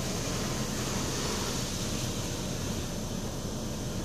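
Automatic car wash spraying water and soap onto the car, heard from inside the cabin as a steady rushing noise.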